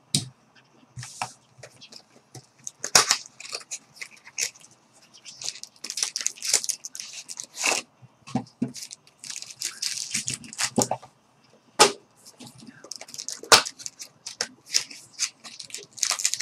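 Trading-card boxes and packs being torn open and handled by hand: irregular crackling, tearing and sharp snaps of cardboard and wrappers.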